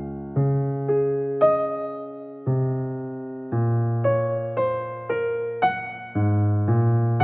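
Background music: a slow keyboard piece, chords and melody notes struck about once or twice a second, each one fading away.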